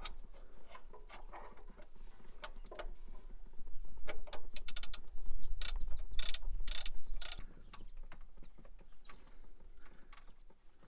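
Metal clicks and clatter of hand tools working on a car engine, with a quick run of ratchet-like clicks about halfway through and a few louder knocks just after.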